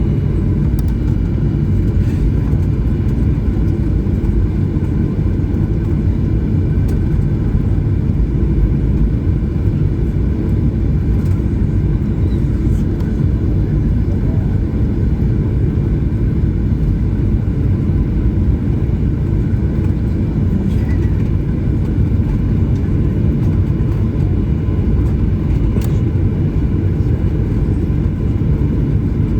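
Steady low rumble heard inside the cabin of a Boeing 737-900 on the ground before takeoff, its CFM56 engines at low taxi power.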